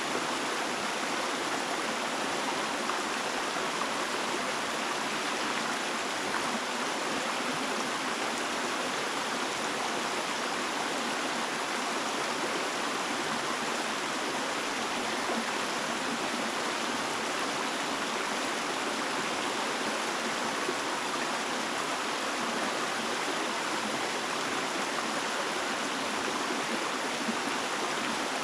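Steady rush of flowing water, even and unbroken, with no other sound standing out.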